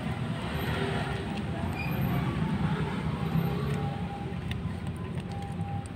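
Steady rumble of street traffic, swelling slightly a couple of seconds in.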